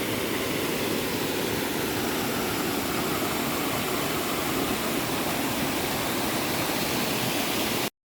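Mountain creek and its small waterfalls rushing, a steady, even sound of running water that stops abruptly near the end.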